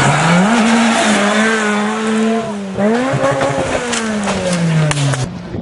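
Ford Fiesta rally car's engine revving hard as it passes on a gravel stage, with loud road and gravel noise. Its pitch dips sharply and climbs again about three seconds in, then falls away. The sound cuts off suddenly near the end.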